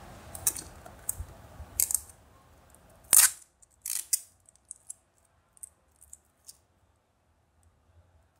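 Hard plastic gashapon capsule being handled and twisted: a run of sharp plastic clicks and scrapes, the loudest a snap about three seconds in, then a few light ticks that die away.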